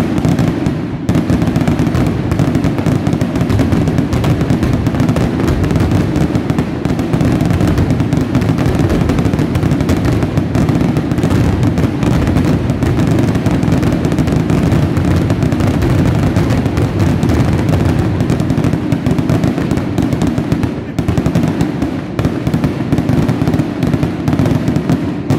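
Fireworks barrage: aerial shells bursting in rapid, overlapping succession, a continuous mass of booms and crackle with no gap between bursts.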